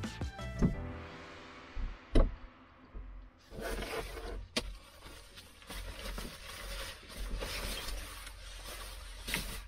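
Background music cuts off about a second in, followed by rubbing and scraping noises with a few sharp clicks.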